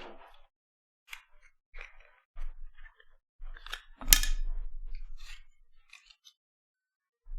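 Plastic acetate trading cards being handled: a string of short clicks and crinkles, with one louder sharp snap about four seconds in.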